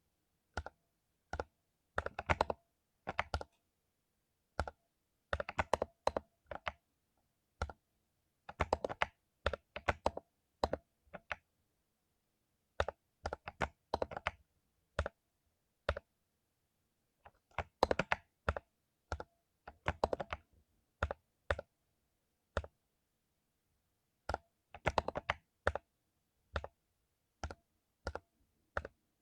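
Mechanical keyboard with lubed Cherry MX Silver linear switches being typed on in irregular bursts of keystrokes, with short pauses between bursts.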